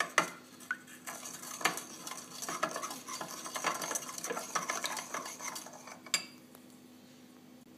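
A spoon stirring soy sauce in a ceramic bowl: a run of small irregular scrapes and clinks against the bowl, ending with one sharper tap a little after six seconds in.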